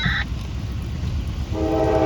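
Low rumble of a CSX freight train's diesel locomotives, with a very short high tone at the start; about one and a half seconds in, the locomotive's multi-chime air horn starts blowing a steady chord.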